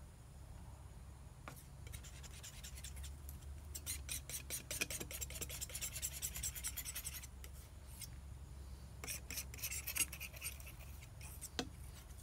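Painting knife scraping and dabbing thick paint onto a painting panel in quick repeated strokes: one long run from about two to seven seconds in, another shorter run near ten seconds, and a sharp tap near the end.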